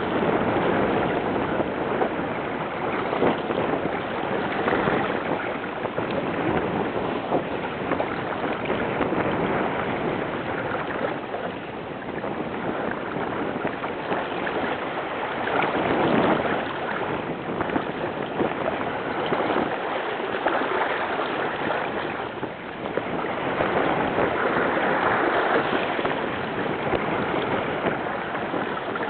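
Wind and rushing water around a Pacific Seacraft Dana 24 sailboat running downwind in about 20 knots of wind, with wind buffeting the microphone. The rush swells and eases every few seconds as the boat moves over the waves.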